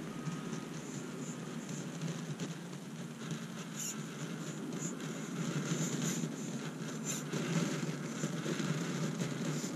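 Electric motor and gear drivetrain of an Axial UTB18 Capra mini RC crawler running on a 3S battery, with the tyres crunching through snow as it climbs.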